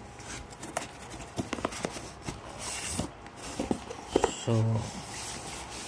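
Cardboard packaging being handled: scattered taps and knocks, with a brief rustle about halfway through, as the retail box is lifted out of the shipping carton.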